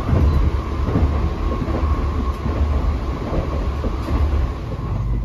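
N700-series Shinkansen bullet train running at speed, heard from inside the car by the door: a steady low rumble of wheels on track with a faint steady high whine over it.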